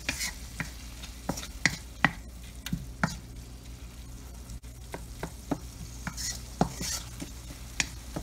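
Wooden spatula stirring ground pork in a wok, knocking and scraping against the pan at an uneven pace, with the meat sizzling as it fries.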